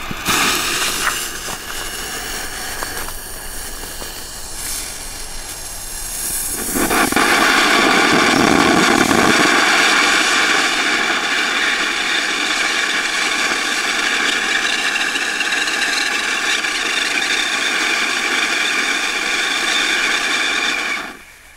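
Weco 'Crazy Claus' gold fountain firework spraying sparks with a steady rushing hiss. It grows louder about six or seven seconds in and stops suddenly near the end.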